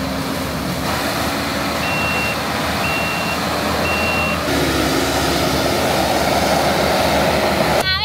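Heavy land-clearing machine running steadily, its backup alarm beeping three times about a second apart as it reverses. After the beeps the machine's sound shifts and grows a little louder.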